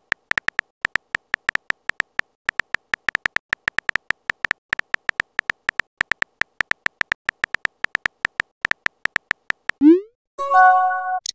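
Simulated phone-keyboard typing clicks from a texting-story app, rapid and even at about six a second, as a message is typed out letter by letter. Near the end, a short rising pop and a brief chime of a few notes follow, as the message is sent.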